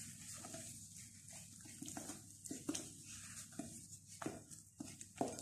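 Wooden spoon stirring a soft, vinegar-foamed dough mixture in a glass bowl: faint scraping, with a few light knocks of the spoon against the glass.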